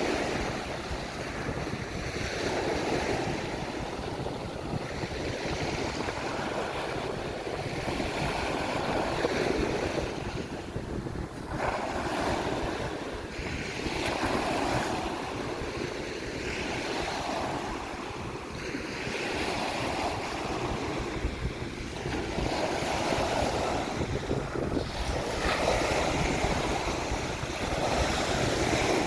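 Small waves breaking and washing on a beach, swelling and fading every few seconds, with wind buffeting the microphone throughout.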